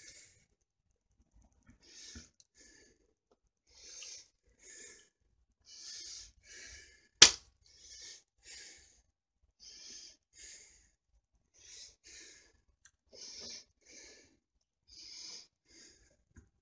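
A person breathing steadily, each breath an in-and-out pair of soft hisses about every two seconds. About seven seconds in there is a single sharp smack, the loudest sound here.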